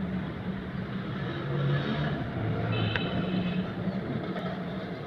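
Motor vehicle engines running, a low hum that shifts in pitch, with a brief high-pitched tone like a horn or beeper about three seconds in.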